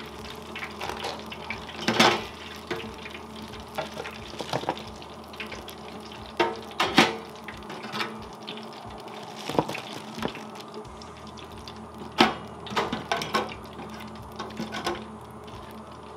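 Hot oil bubbling and sizzling in a Cajun deep fryer while kingfish balls fry. Wire fry baskets clank and knock against the metal fryer a dozen or so times as a basket is lifted out, emptied onto a tray and hung back to drain, with the sharpest clanks about two, seven and twelve seconds in.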